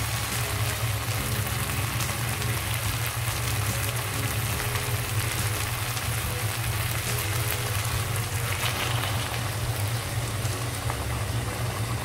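Chicken pieces with tomatoes and onions sizzling in a pot, an even hiss over a steady low hum.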